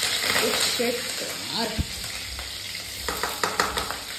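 Green chillies and cumin seeds sizzling in hot oil in a steel kadhai, with sharp pops and spits of oil toward the end.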